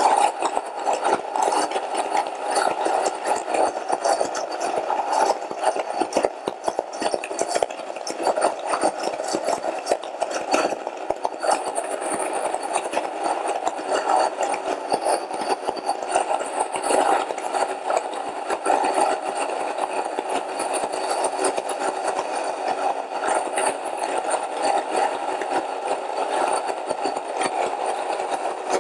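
Komo Fidibus Classic electric stone grain mill running steadily, its corundum-ceramic stones grinding grain into flour. The motor noise carries a dense, continuous crackle from the grinding.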